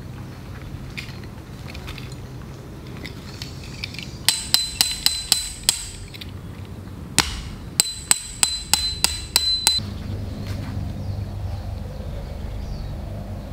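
A tent peg being hammered into the ground, each strike ringing briefly: a run of six quick blows at about four a second, a single blow, then a run of seven.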